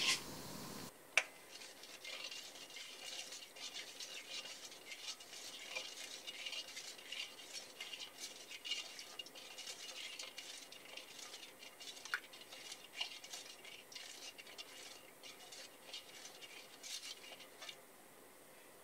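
Black plastic ladle stirring sugar into water in a metal wok, scraping the pan bottom with quick, irregular scratchy strokes. The stirring stops shortly before the end.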